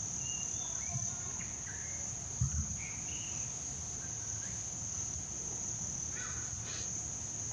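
Insects droning in a steady high-pitched whine, with a few faint short chirping calls scattered through and a brief low thump about two and a half seconds in.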